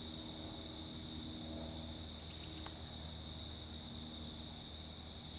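Crickets chirring in a steady high chorus, with a single faint click about two and a half seconds in: the toe of a putter striking a golf ball on a short stroke out of the rough.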